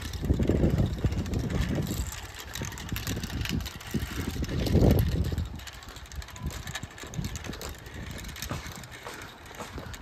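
Wind buffeting the microphone in low rumbling gusts, strongest near the start and again about five seconds in, then easing, with light rattling clicks throughout as the rig moves along.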